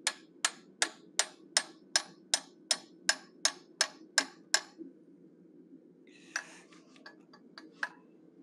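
Hammer tapping a small chisel to cut the mouth line into a steel bear head: about a dozen sharp, even taps, roughly three a second, that stop about halfway through. A few faint clicks and a short rustle follow.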